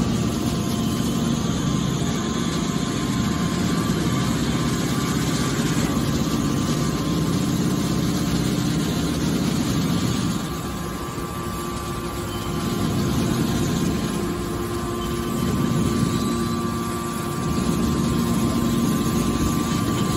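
Hydraulic can baler running: a steady machine drone from its motor and hydraulic pump with a constant whine. It eases off about ten seconds in and builds again a few seconds later.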